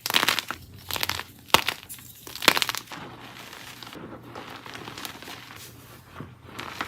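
Dyed gym chalk blocks being crushed. There are four crisp crunches in the first three seconds, then softer crumbling, and one more crunch near the end.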